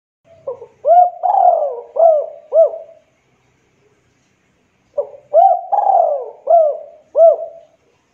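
Spotted dove cooing: two phrases a couple of seconds apart, each a quick pick-up note followed by four coos, the second coo drawn out and falling in pitch.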